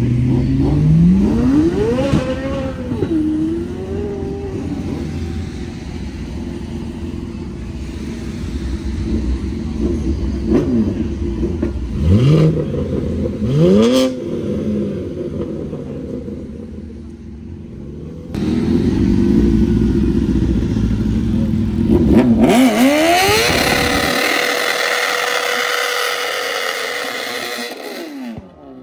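High-performance car engines revving as cars pull out: a BMW M3 sedan's engine rising and falling, then two sharp throttle blips about halfway through. Later a car revs up hard into a burnout, its engine held at high revs under loud tyre screech for about five seconds, stopping abruptly near the end.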